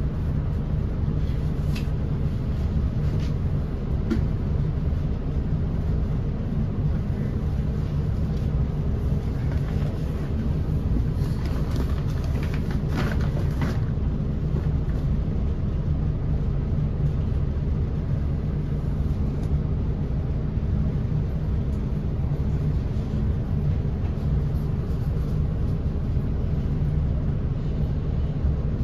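Steady low rumble of a TriMet MAX light rail train running along the track, heard from inside the car, with a few brief clatters near the middle.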